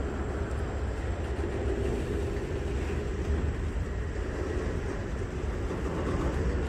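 Freight train of autorack cars rolling slowly past, with a steady rumble of steel wheels on the rails.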